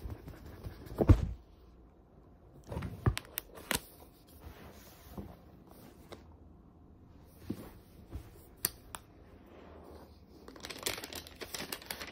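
Cardboard laptop box being handled and opened: a thump about a second in, then scattered knocks and sliding of the box and its lid, and crinkling of the laptop's paper-like wrap near the end.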